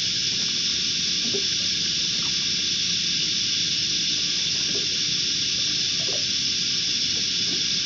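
A steady, even hiss like running or spraying water, unbroken throughout, with faint small knocks now and then.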